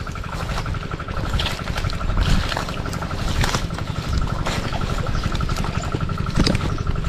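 An engine running steadily with a low rumble. A faint, even, pulsing high-pitched buzz runs under it, and there are scattered short clicks.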